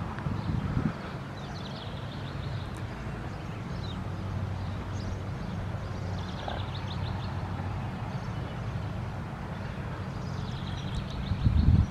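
Outdoor ambience with no siren sounding: a low steady hum, a bird's short rapid high trill repeating every few seconds, and gusts of wind on the microphone near the start and again near the end.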